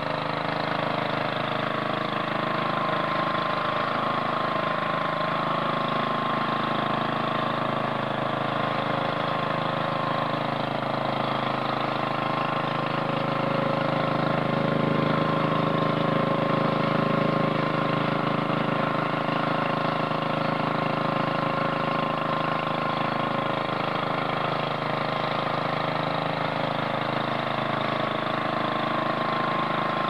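Small gasoline engine running steadily at a constant speed, from the snow-plowing garden tractor or a snow blower working alongside it.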